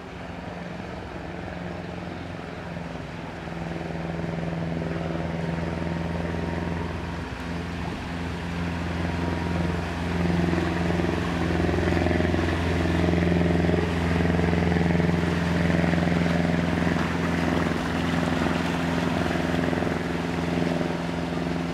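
Vintage wooden motor launch's engine running at a steady cruising speed as the boat passes close by. The engine grows louder towards the middle and eases a little near the end.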